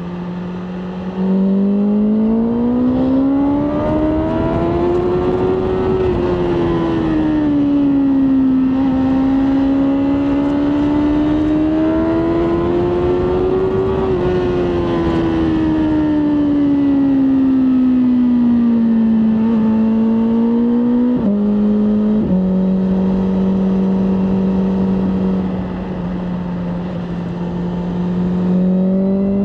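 BMW M1000R Competition's inline-four engine under way, its note climbing over the first few seconds, easing and climbing again, then slowly falling away. A short blip about 21 s in, after which the engine holds a steady low note to the end, with wind rush throughout.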